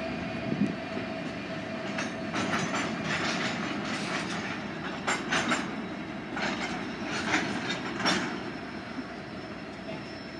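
Union Pacific freight train's hopper and tank cars rolling past: a steady rumble of steel wheels on rail with irregular clacks, easing off in the last couple of seconds as the train moves away.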